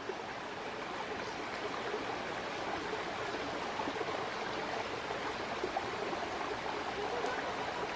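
Shallow rocky stream flowing over stones: a steady rush of water with many small babbling gurgles.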